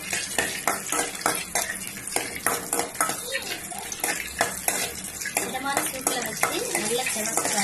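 Metal spoon repeatedly scraping and clinking against an aluminium kadai as cashew nuts are stirred and fried in ghee, over a steady sizzle.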